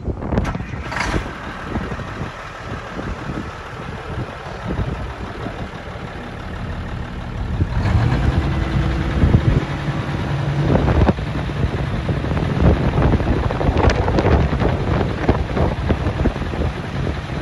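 Diesel engine of a 1985 Mack R688ST grain truck running at idle, with wind buffeting the microphone. About eight seconds in the engine note grows louder and heavier as the hydraulic hoist lifts the grain box.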